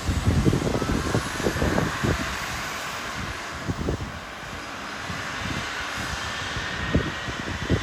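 Boeing 737 jet engines running with a faint whine slowly rising in pitch. Irregular low gusts, likely wind buffeting the microphone, are loudest in the first two seconds and again near the end.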